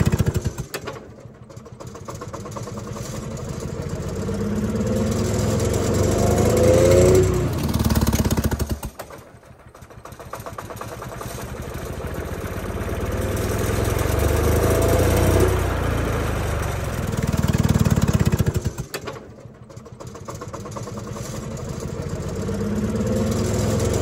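Detroit Diesel 2-71 two-stroke diesel running backwards, blowing smoke out through its air intake instead of the exhaust stack. The engine sound swells and climbs in pitch, then falls away abruptly, three times over.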